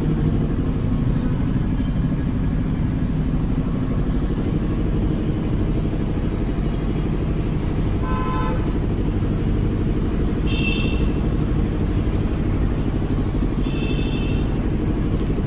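Road traffic: engines running steadily with several short vehicle horn toots, the first a little after halfway, another a couple of seconds later and one near the end.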